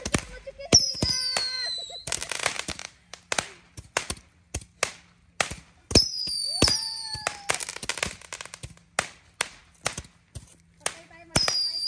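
Small stick rockets (bottle rockets) launching: hissing as they go up, whistles that fall in pitch three times, and many sharp bangs and crackles as they burst.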